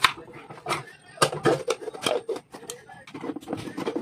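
Kitchen knife cutting carrot into small pieces on a wooden cutting board, a run of irregular knocks and taps, with the clatter of a blender's chopper attachment being handled near the end.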